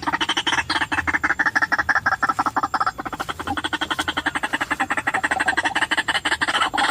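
White-breasted waterhen (ruak-ruak) calling: a long, unbroken run of rapid repeated notes, about ten a second.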